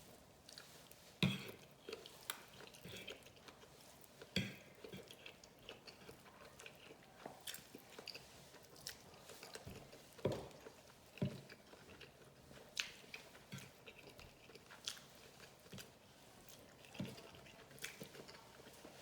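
Close-miked chewing and biting of seafood and rice: irregular wet smacks and clicks of mouth and teeth, a few of them sharper than the rest.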